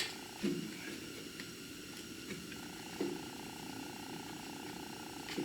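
Faint steady hum with a few light knocks and clicks, from hands working a wiring harness plug loose.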